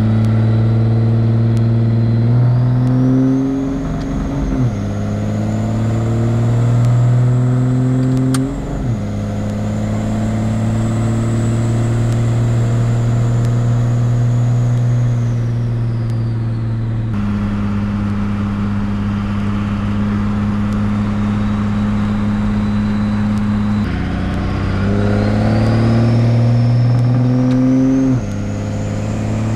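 5.9 Cummins turbo-diesel inline-six in a Dodge Ram pickup accelerating, heard from inside the cab. The engine note climbs and falls back twice in the first nine seconds as the automatic transmission upshifts, then runs steady with a high turbo whistle. Near the end it climbs and drops once more with another shift.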